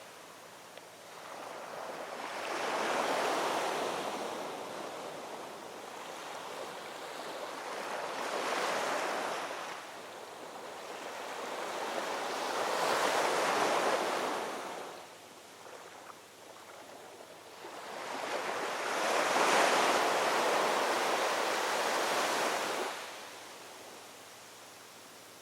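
Ocean waves rolling onto the shore: four surges of rushing surf, each swelling and fading away, with quieter lulls between.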